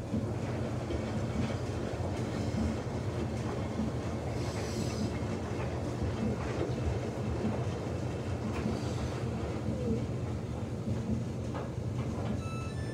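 Samsung front-load washing machine running with a single towel in the drum: a steady low rumble and hum with irregular light clicks and knocks.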